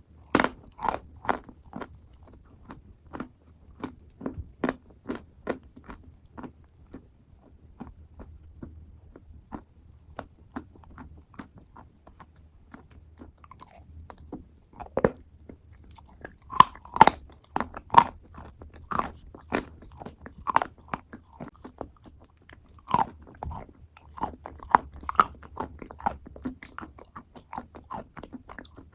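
Close-miked chewing and biting of wet clay paste, with repeated short crunches and moist clicks in the mouth; the crunching grows louder and denser about halfway through.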